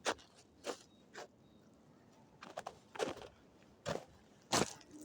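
Footsteps crunching on the forest floor, about seven separate irregular steps.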